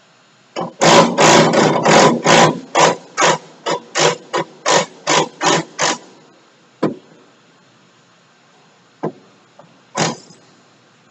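Hand-tool work on the machine: a quick run of about fifteen sharp strokes, roughly three a second, lasting about five seconds, then a few single knocks.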